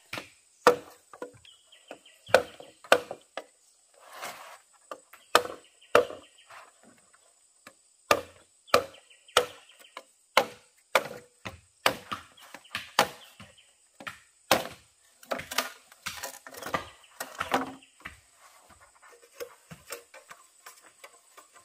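Repeated chopping into wood, sharp strokes coming about one or two a second in an uneven rhythm. Near the end they die down to softer knocks.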